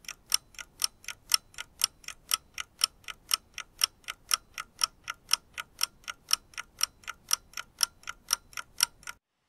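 Ticking-clock sound effect: a steady tick-tock at about four ticks a second, alternately louder and softer, that cuts off suddenly near the end.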